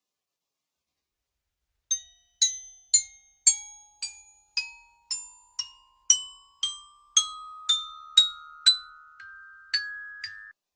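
Cartoon sound effect of bell-like mallet-percussion notes struck about twice a second, starting about two seconds in. Under the strikes a held tone climbs step by step, so the run rises in pitch like a comic climbing or tiptoeing cue.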